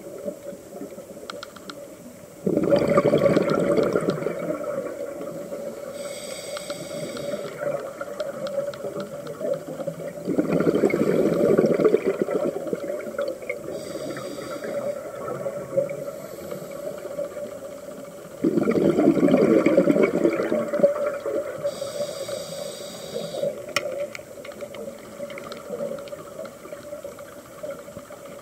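Scuba diver breathing through a regulator underwater. Three loud rushes of exhaled bubbles come about eight seconds apart, each followed a few seconds later by a quieter, higher hiss of an inhalation.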